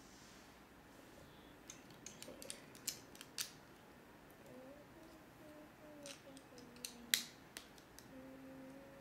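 Small plastic clicks of Lego pieces being handled and pressed together, in two clusters of quick clicks, the sharpest about seven seconds in.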